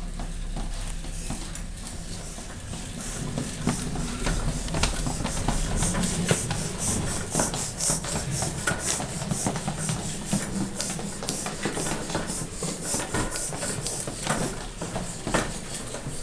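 A child's plastic ride-on toy motorcycle rolling over a laminate wood floor: a continuous rumble and rattle from its plastic wheels, with many clicks and knocks, louder from about three seconds in.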